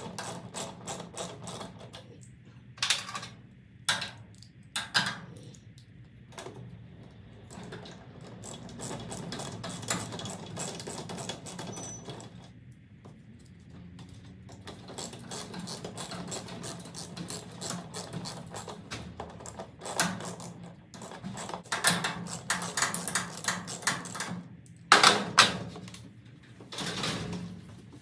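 Hand ratchet wrench clicking in quick runs as screws are tightened into a garage door opener's wall bracket, with two louder bursts near the end.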